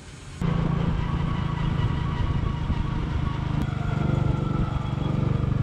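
Small manual-geared motorcycle engine running steadily while being ridden along a road, heard from the rider's seat; it starts about half a second in.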